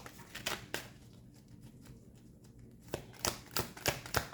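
Tarot cards being handled: a few sharp clicks, a quieter moment, then a steady run of card clicks at about three a second.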